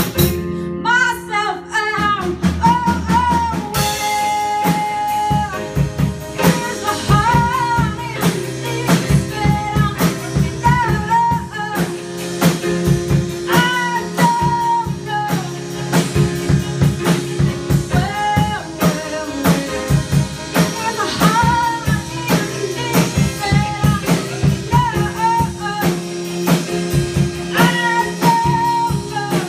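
Live rock band playing: a woman sings a melody with long held, wavering notes over a steady drum beat and band accompaniment.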